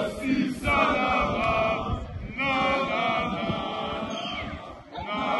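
A large group of men chanting in unison, sung out in long phrases with brief breaks about two seconds in and again near the end.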